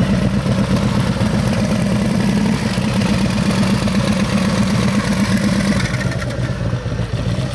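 Motorcycle engines idling steadily, a V-twin cruiser close by, easing off a little in the last second or so.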